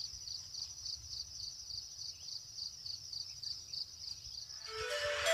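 An insect chirping steadily in a high-pitched pulse, about four chirps a second. Music fades in near the end.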